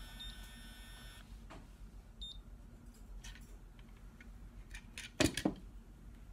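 Conair Curl Secret automatic hair curler beeping: a steady electronic tone stops about a second in, and a short high beep follows about a second later. Two or three sharp clicks come near the end.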